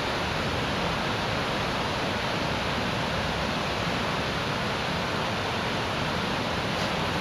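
Steady, even rushing hiss that holds the same level throughout.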